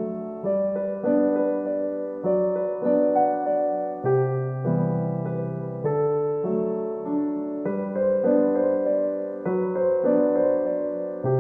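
Background music: a soft piano melody over chords, notes changing about every half second.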